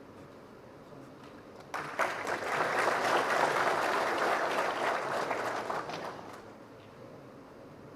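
Audience applauding for about four seconds: it starts abruptly about two seconds in and dies away shortly after six seconds.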